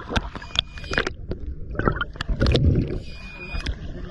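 Sea water sloshing and gurgling around a camera held at the waterline, with irregular knocks and clicks. A louder burst of gurgling comes about two and a half seconds in.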